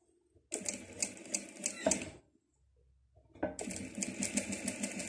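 Industrial lockstitch sewing machine stitching through fabric and elastic, a rhythmic run of needle clicks. It runs for about a second and a half, stops, and starts again about a second later.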